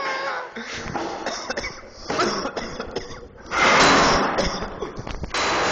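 Sledgehammer blows on a school desk, with sharp knocks and the clatter of the desk breaking; the loudest crash comes about three and a half seconds in and lasts about a second.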